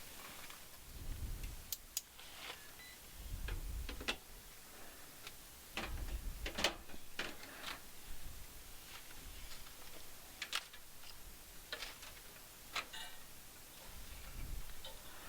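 Scattered sharp clicks and light knocks of hands and tools working on a furnace's run capacitor and its mounting, with a few dull low thumps of movement.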